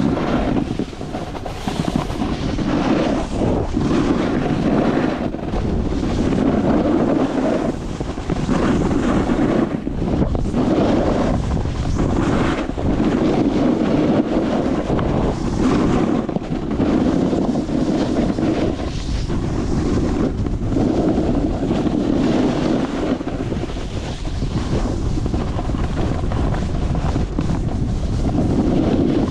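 Wind buffeting a GoPro's microphone, mixed with the hiss and scrape of a snowboard sliding over snow on a downhill run, swelling and easing every couple of seconds.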